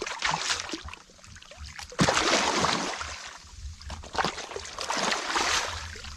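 Shallow muddy water splashing and sloshing as hands and body churn through it while groping for a fish. A sudden loud splash starts about two seconds in, with another spell of splashing later on.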